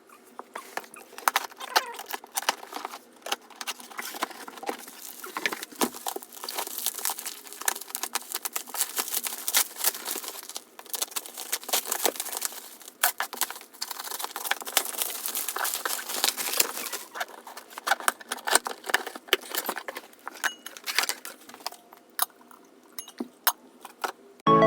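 Packaging being handled and opened: crinkling and rustling with many sharp clicks and knocks, coming in uneven bursts and easing off in the last few seconds.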